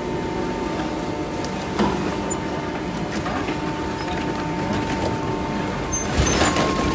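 Garbage truck's hydraulic packer running with a steady hum as the ram compresses cardboard into a block. There is a knock about two seconds in and a louder rough burst near the end.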